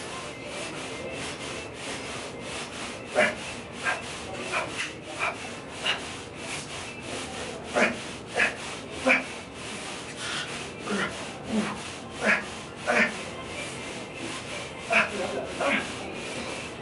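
Short rasping strokes, irregularly spaced at about one to two a second, from a set of leg press reps pushed under a very heavy load.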